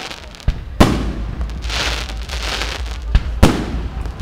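Aerial firework shells bursting: four sharp bangs, the loudest just under a second in and about three and a half seconds in, with a dense crackling hiss of burning stars between them.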